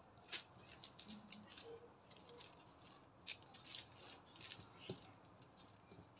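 Faint rustling as a cotton t-shirt is unfolded and smoothed flat by hand, a series of brief crinkles with the sharpest about a third of a second in.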